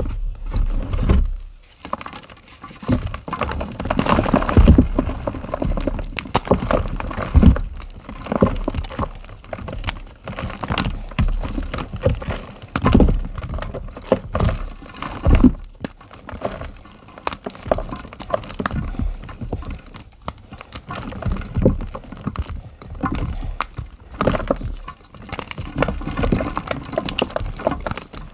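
Reformed gym chalk being crushed and crumbled: dense, irregular crunching and crackling with many sharp snaps.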